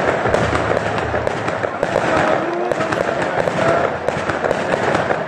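Fireworks display: many shells bursting in quick succession, a dense, continuous run of bangs and crackling with no pause.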